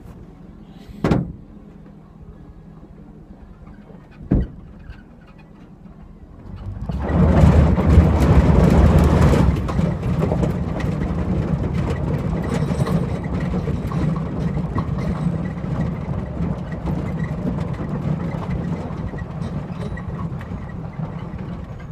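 Pickup truck driving off on a gravel road: two sharp knocks, then about six and a half seconds in the engine and tyre-on-gravel noise swell up. It is loudest for a couple of seconds as the truck gets going, then settles into a steady drive.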